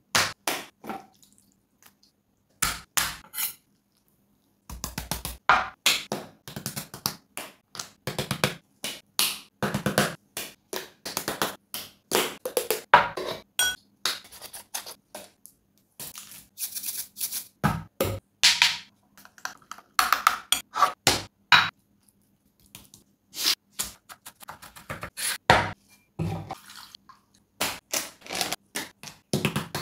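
A run of close-miked food-prep sounds cut one after another, with abrupt silences between the cuts: raw chicken breast handled on a wooden chopping board, spice powder tipped into a ceramic bowl, and shredded cheese poured from a plastic bag into a glass bowl. The sounds are short sharp taps, rustles and knocks in quick clusters.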